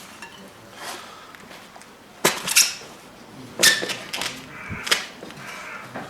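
Metal tyre levers clanking against a motorbike wheel rim while a tyre is fitted: several sharp clanks and clicks with a brief ring, bunched in the middle few seconds.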